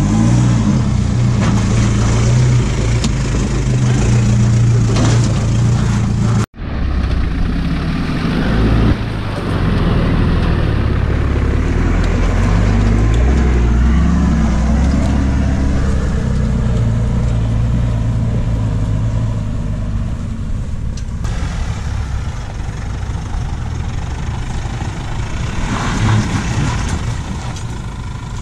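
Four-wheel-drive ute engines running at low revs as the vehicles crawl through a deep rutted off-road washout, with a brief dropout about six seconds in.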